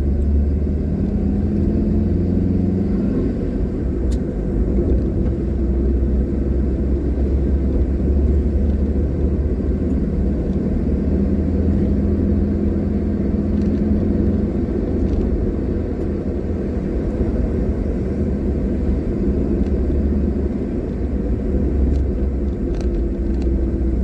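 A car driving along a paved road, heard from inside the cabin: a steady low rumble of engine and tyres, with a faint engine hum that comes and goes.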